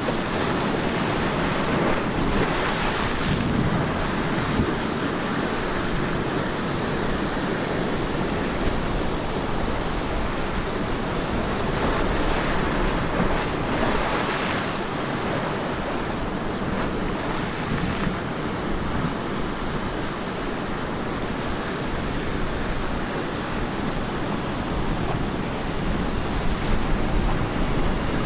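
Ocean surf breaking and washing onto the beach: a continuous rush of water that swells into a louder hiss each time a wave breaks, several times over.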